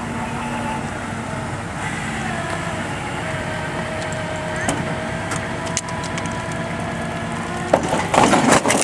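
Tow truck's engine running with a steady whine as its boom pulls a junked sedan over, with a few creaks and clicks. Near the end the car tips onto its side with a loud crunching crash of sheet metal.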